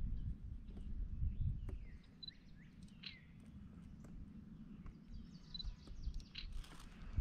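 Quiet outdoor ambience: a steady low rumble of wind and handling noise, with a few short bird chirps and whistled calls a couple of seconds in and again later.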